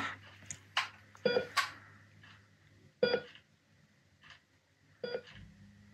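Electronic heart-monitor beeps: three short beeps about two seconds apart, with a few faint clicks between them.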